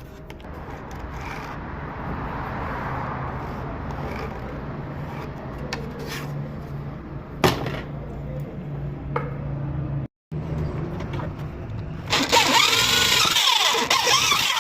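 Power tool running on wood: a steady motor hum with scraping noise and a few sharp clicks, cut off briefly about ten seconds in, then much louder with sweeping whining tones over the last couple of seconds.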